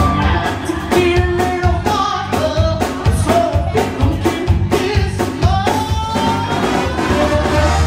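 Live band playing loudly: a drum kit hitting steadily under a bass line, with a lead melody that slides between notes above them.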